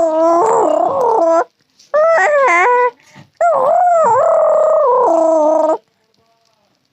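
Three long, high, wavering howl-like calls, each held with its pitch bending up and down and cutting off abruptly; the last call is the longest.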